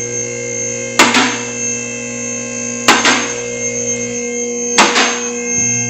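A steady multi-tone hum, with a sharp click and a short hiss repeating evenly about every two seconds, three times.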